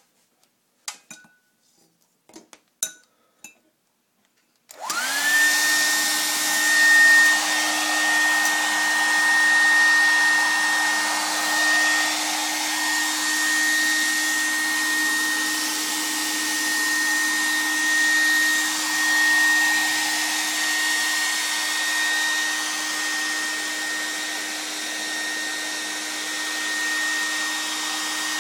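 A few light handling knocks, then a handheld hair dryer is switched on about five seconds in. It spins up with a brief rising whine and then runs steadily: a constant airy rush with a steady whine over it.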